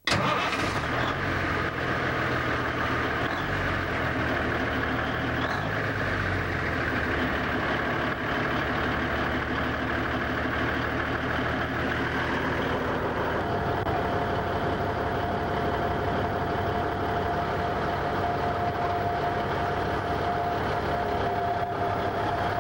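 A heavy truck engine running steadily, starting abruptly. A steady high tone joins about halfway through.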